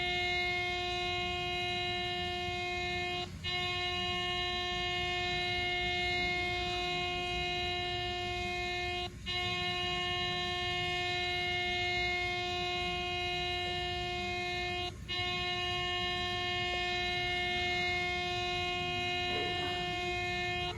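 Air horn blowing one steady, unchanging note, broken by brief gaps about every six seconds.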